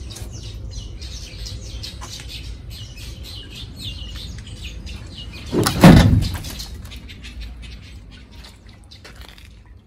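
Small birds chirping repeatedly in the background over a low rumble. About six seconds in comes a single loud thump with a scrape that dies away over about a second.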